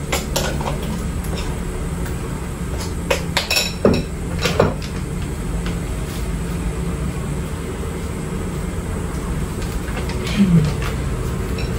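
A metal spoon clinks and knocks against a glass mixing bowl of batter several times in the first five seconds. A steady low hum of kitchen background noise runs underneath.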